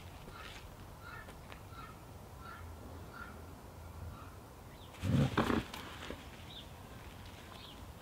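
A dog barking: a short burst of low barks about five seconds in.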